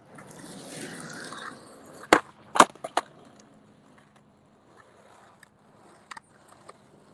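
Skateboard wheels rolling on pavement, then three sharp clacks about two seconds in as the board is popped and landed, followed by a few lighter taps of the board.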